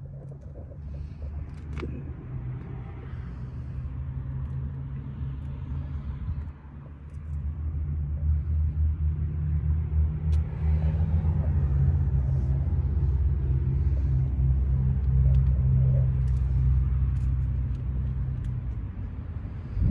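A vehicle engine's low, steady rumble. It grows louder about seven seconds in and stops at the very end.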